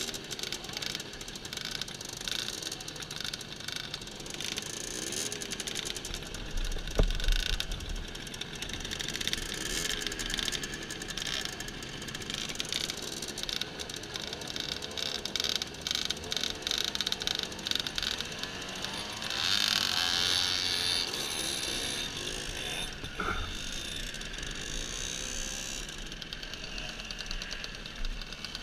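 Several small moped engines idling in a queue, ticking rapidly, with their pitch wavering up and down as riders blip the throttles. One engine revs louder about two-thirds of the way through, and a single sharp click comes about a quarter in.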